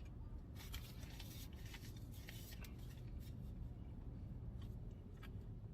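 Faint, short scratchy scrapes and rustles, mostly in the first half: eating a slush float with ice cream from a plastic cup.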